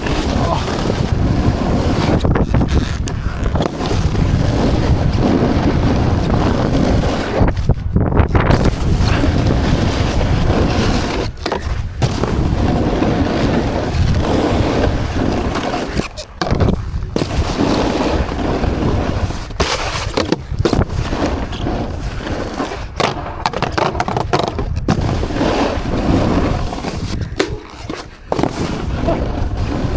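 Skis scraping and carving across snow, mixed with heavy wind rush on a helmet-mounted microphone. The noise dips briefly several times, as when the skis leave the snow.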